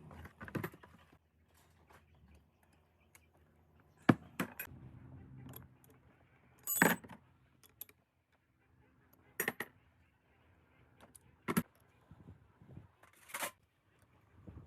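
Small metal parts clinking and tapping against each other, about six separate sharp clinks spaced irregularly, one of them ringing briefly.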